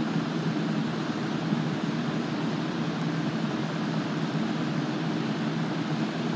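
Steady low mechanical drone with a hiss that holds level and does not change.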